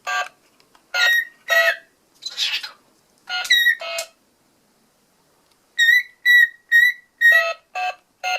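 Cockatiel mimicking the beeps of a children's toy phone: a series of short, pitched beep-like whistles, with a pause of about a second and a half partway through, then a quicker, evenly spaced run.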